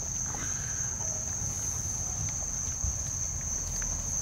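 Steady high-pitched insect trill, with faint scattered clicks of puppies eating from a plastic tub.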